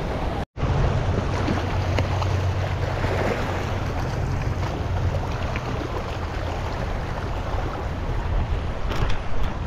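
Wind buffeting the microphone over water washing against shoreline rocks, a steady rushing noise with a low rumble; the sound cuts out for an instant about half a second in.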